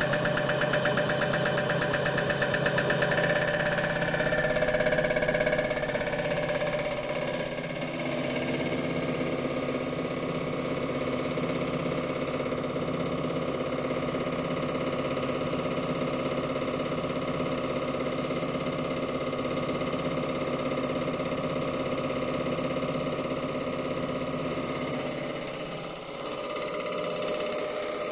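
Common rail injector test bench running: its electric drive spins the CP1 high-pressure pump with a steady mechanical hum while the Bosch 0445116022 injector is fired during an automatic test. A rapid, even ticking is heard for the first three seconds. About two seconds before the end the low hum drops away and the sound changes.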